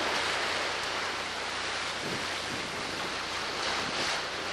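Steady rush of wind and breaking waves on a rough, whitecapped sea, with wind buffeting the microphone.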